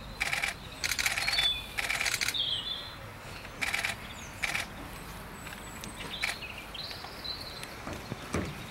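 Several short bursts of camera shutter clicks in the first five seconds, with birds chirping faintly in the background.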